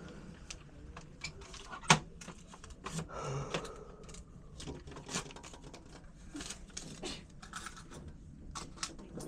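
Scattered light clicks and taps of things being handled at a shop counter, with one sharper click about two seconds in.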